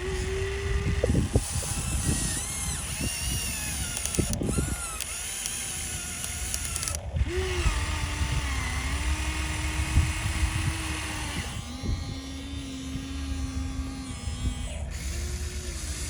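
Small electric motors of radio-controlled construction models whining, their pitch dipping and shifting as they take load, with low rumbling and scattered clunks of moving parts.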